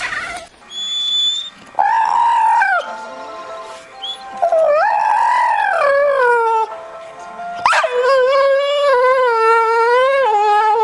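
A dog howling: three long, drawn-out howls, the last one longest and wavering up and down. A brief thin high tone sounds just before the first howl.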